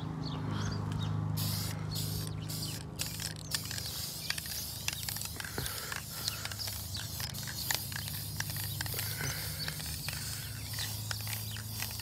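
Aerosol spray-paint can hissing as paint is sprayed onto a truck's body panel to cover chipped spots, in a few short bursts and then one long continuous spray. A steady low hum runs underneath.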